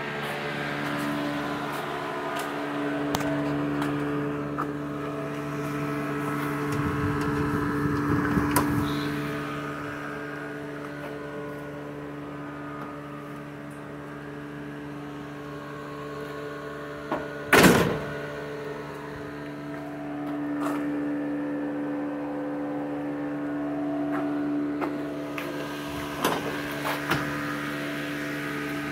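Electric shop fan humming steadily. One loud, sharp knock comes about two-thirds of the way through, and a few lighter knocks come near the end.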